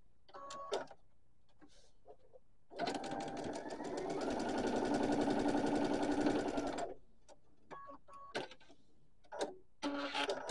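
Electric sewing machine stitching a seam: about three seconds in the motor starts, speeds up and runs steady with rapid needle strokes for about four seconds, then stops. A few short clicks and handling sounds come before and after.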